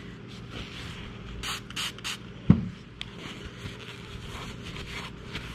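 A cloth rubbing and wiping over skin close to the microphone: a run of soft scraping strokes. One brief low thud about halfway through is the loudest sound.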